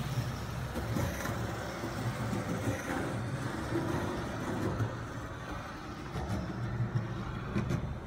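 Skateboard wheels rolling on concrete with a steady low rumble that slowly fades as the board moves away, with a couple of faint clicks.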